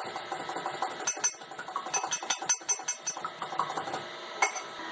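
Egg whites being beaten with a metal utensil in a dish: a fast, uneven run of clinks of metal on the dish that stops about four seconds in, followed by one last clink.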